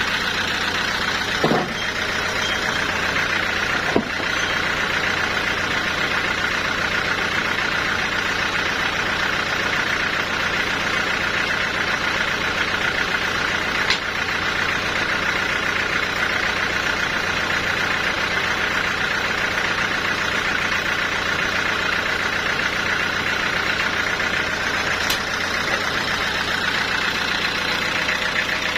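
Sawmill machinery running steadily: a constant low hum with a higher steady whine, and a few short sharp knocks scattered through.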